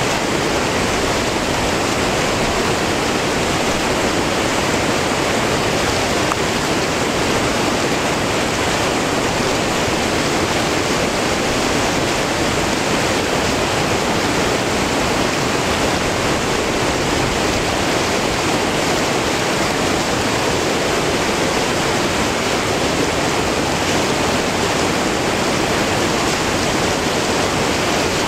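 River rapid rushing over boulders: a steady, even rush of whitewater with no break.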